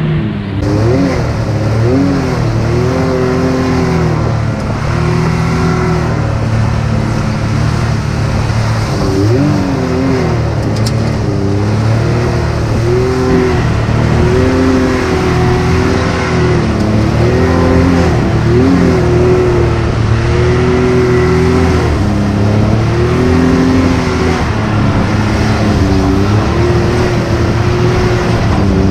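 Can-Am Maverick X3 Turbo side-by-side's turbocharged three-cylinder engine running under load, heard from the driver's seat. The revs swell and drop over and over as the throttle is worked on and off.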